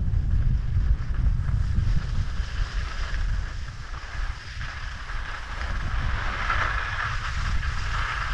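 Wind buffeting a helmet-mounted camera's microphone while skiing downhill, a low rumble that is heaviest at first and eases after about two seconds. Under it, skis hissing and scraping over groomed snow, growing louder near the end.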